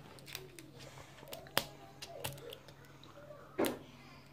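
Fingers picking and peeling at the wrapper layer of a LOL Surprise ball: scattered small clicks and crackles, a sharp click about a second and a half in and a louder short rustle past halfway.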